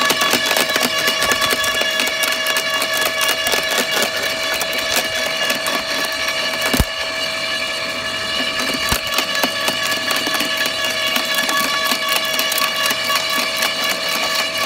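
Makita UD2500 electric garden shredder, a slow-turning cutting drum of about 40 rpm, crushing and snapping branches fed into its hopper: a steady whine from the machine under continuous crackling and splintering of wood, with a sharper crack about seven seconds in and another about nine seconds in.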